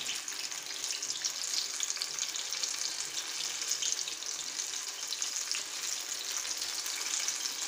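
Batter-coated ripe plantain slices deep-frying in hot coconut oil: a steady, dense crackling sizzle with many small pops.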